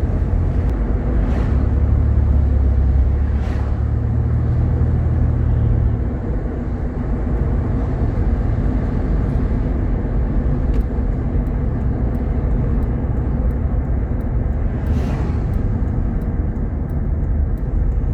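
Cabin drone of a Jeep Grand Cherokee with a 3.7-litre V6 driving along: steady engine and road noise, with a deeper engine tone that eases off about six seconds in.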